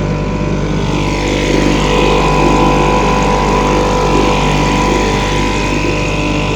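British Seagull two-stroke outboard motor running steadily, pushing a small boat along.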